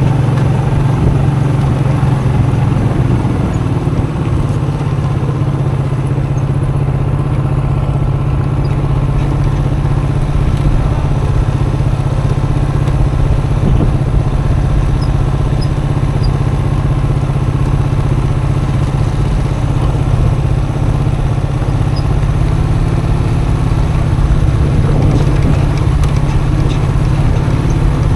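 Custom motorcycle's engine running steadily under way, its note rising a little near the end.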